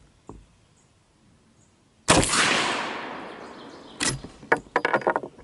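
A single shot from a Winchester 1866 Yellow Boy lever-action rifle firing a 250-grain .45 Colt handload, about two seconds in, with its report echoing away over about two seconds. A run of sharp metallic clicks and clacks follows as the lever is worked to eject and chamber a round.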